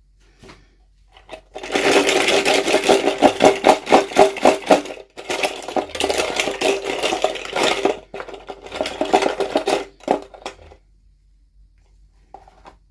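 Toy packaging being torn and peeled open by hand: a rapid rasping crackle in three long bursts, with a steady ringing tone underneath, then a small click near the end.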